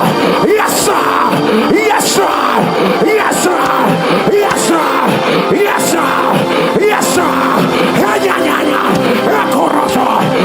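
Music with held keyboard chords and regular drum hits, with a voice chanting or singing over it.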